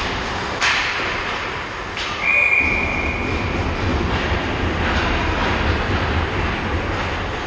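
Two sharp clacks of hockey stick and puck, then a referee's whistle blows one steady note for about a second, stopping play. A low rumble of arena noise runs underneath.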